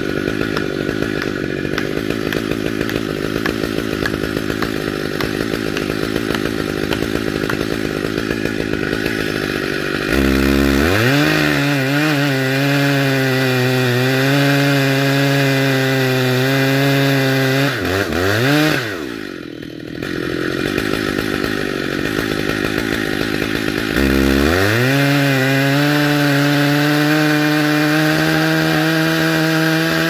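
Stihl MS 880 chainsaw, a big two-stroke saw, idling roughly for about ten seconds, then revved up to full throttle and cutting into the trunk of an oak. Near the middle the throttle drops off and the engine falls almost to idle for a moment before screaming back up, and it dips again briefly a few seconds later before running steady in the cut.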